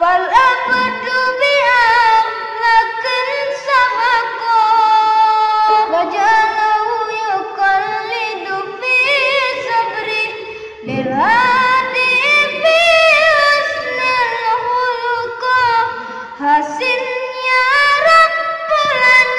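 A boy singing an Arabic sholawat, a devotional song, solo in long, wavering, ornamented phrases. A new phrase begins with an upward slide a little past halfway.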